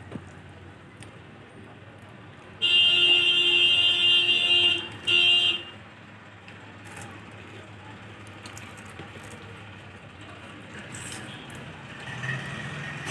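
A loud, steady buzzing horn tone, held for about two seconds and then sounded again briefly.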